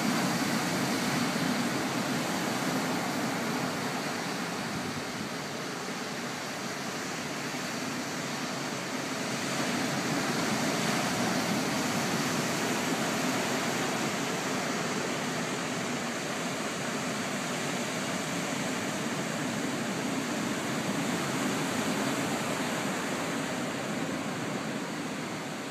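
Steady wash of ocean surf breaking on a sandy beach, a continuous rushing noise that eases and swells slowly.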